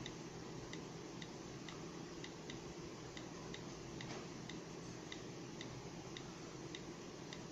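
Faint, regular ticking, about two ticks a second, over a steady low room hum.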